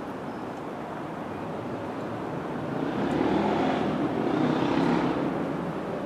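Steady background rumble of traffic that swells as a vehicle passes, loudest about three to five seconds in, then fades back.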